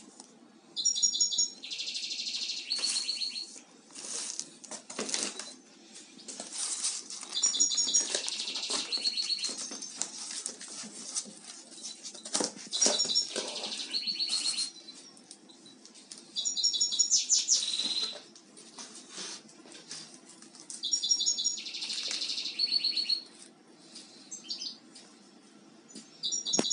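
A songbird singing the same short phrase over and over, about every four to five seconds: a few high, clipped notes, then a buzzy stretch and a short trill. Cardboard and books are handled in between.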